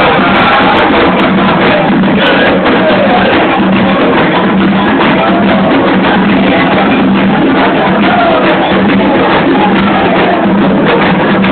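Candomblé ritual music for Xangô: loud, continuous hand drumming with a group singing a chant over it.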